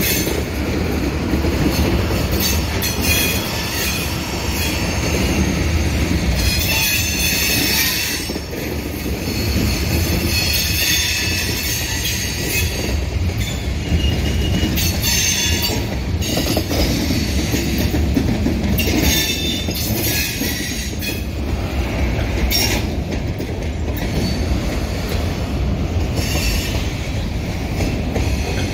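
Slow-rolling freight train's covered hoppers and autorack car passing close by: a steady rumble of steel wheels on the rails, with high-pitched wheel squeal coming and going every few seconds.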